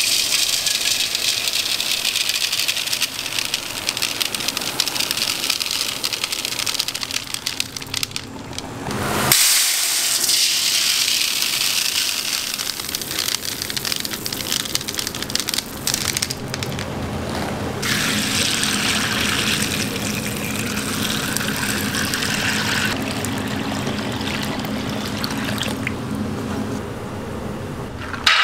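Soybeans pouring into a stainless steel bowl: a steady rushing hiss that breaks off and starts again a few times. A low steady hum runs under the later part.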